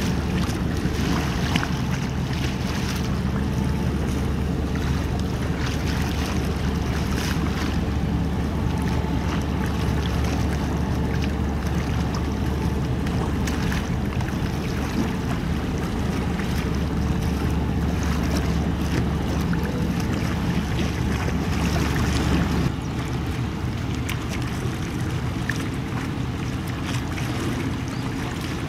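A car ferry's diesel engines drone steadily across the water, mixed with wind on the microphone and the wash of water. A little over three-quarters of the way through, the drone steps down abruptly and the sound turns quieter.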